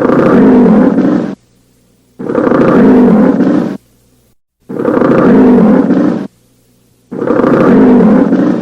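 A bear roaring four times, each roar about a second and a half long with a short silence between. The roars are identical, the same recording repeated.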